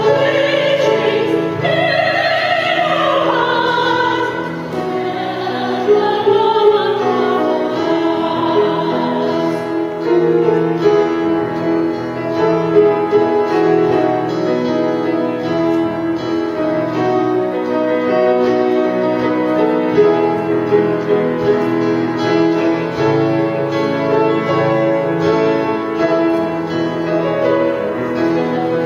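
Church praise-team singing with piano accompaniment: a sung phrase with vibrato over the first few seconds gives way to a long stretch of steadily struck, held piano notes.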